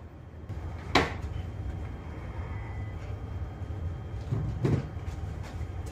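Steady low machinery rumble, with a sharp knock about a second in and a dull thump near the end.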